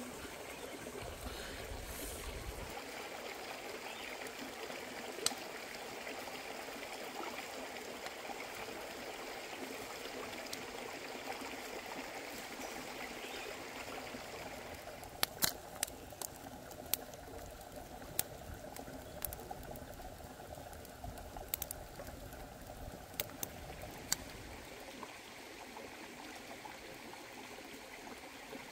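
A rocky stream flowing steadily. From about halfway in, a scatter of sharp pops and crackles from the wood-ember fire grilling a whole catfish.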